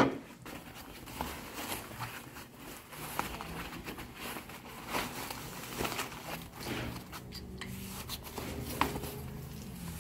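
White plastic packing wrap crinkling and rustling in irregular bursts as a carbon-fibre wing endplate is unwrapped by hand, with a sharp knock right at the start as a part is set on the counter.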